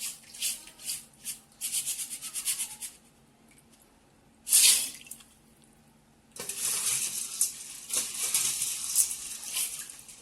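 Water running and splashing in irregular spurts, with a short loud splash about four and a half seconds in and a steadier run of water near the end.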